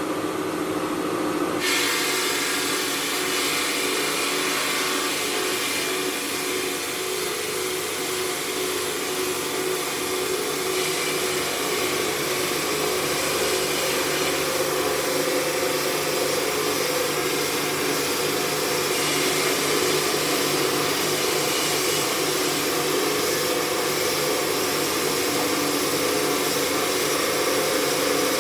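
Stone-working machinery running steadily, a continuous motor hum under a loud hiss of cutting or grinding, with a change in the sound about two seconds in.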